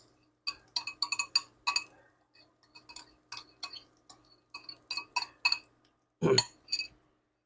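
Light clinks and taps of a utensil against a small dish as garlic is scraped out into a hot pan, in an irregular run, with one louder dull knock about six seconds in.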